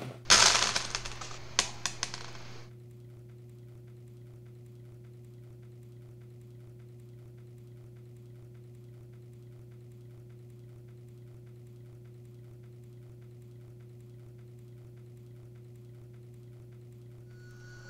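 A loud rushing noise with a few sharp clicks cuts off suddenly about three seconds in, leaving a steady low hum.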